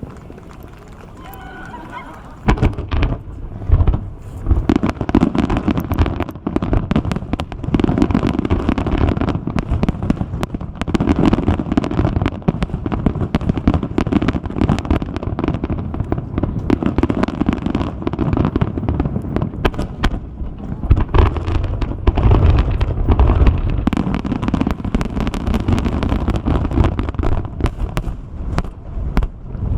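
Fireworks going off in a dense, continuous barrage of bangs and crackles with a low rumble, starting about two and a half seconds in.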